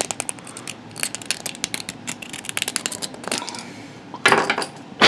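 Small metal hook pick scraping and clicking around the inner threads of a 3D-printed plastic cap, cleaning out threads that bind and won't let the cap thread on. It makes a quick run of small clicks and scrapes, then a louder clatter a little over four seconds in.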